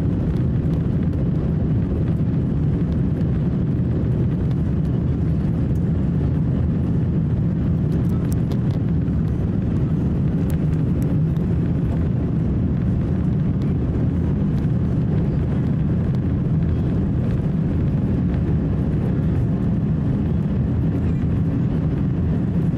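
Cabin sound of an Airbus A350-1000 rolling down the runway for takeoff: a steady, loud, low rumble of its Rolls-Royce Trent XWB engines and the wheels on the runway.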